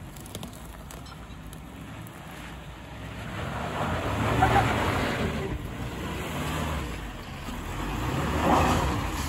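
Suzuki Jimny's 1.5-litre four-cylinder petrol engine pulling in first gear, low-range four-wheel drive, up a rutted dirt slope, with tyres scrabbling on loose earth. It grows louder about three seconds in and swells again near the end.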